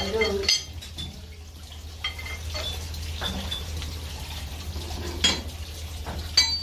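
Steel hand tools clinking and knocking against metal engine parts a handful of times, a few of the strikes leaving a short ring, over a steady low hum.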